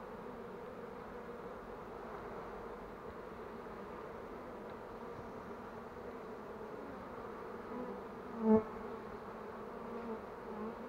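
A swarm of honey bees clustered in a mesh swarm box, buzzing steadily, the hum of a swarm just gathered. About eight and a half seconds in there is one brief, much louder buzz close by.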